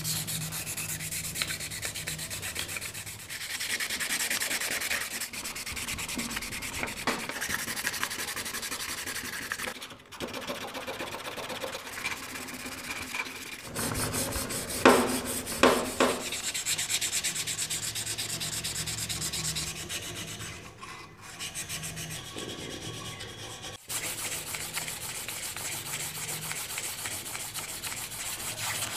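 Sandpaper rubbed by hand over the steel parts of a TT-30 Tokarev pistol (slide and barrel), in rapid back-and-forth rasping strokes. Two louder knocks come about halfway through.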